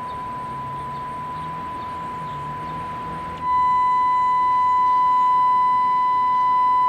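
A steady 1 kHz test tone from a loudspeaker, heard from outside through a single-pane stained-glass window. About three and a half seconds in, it turns clearly louder and brighter with added overtones: this is the measurement with the window's sound-insulating treatment removed, after the quieter treated measurement.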